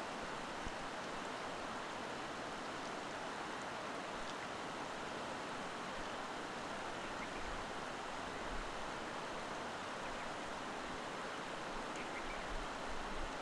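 Steady, even background rush with no distinct calls, and a few faint low bumps near the end.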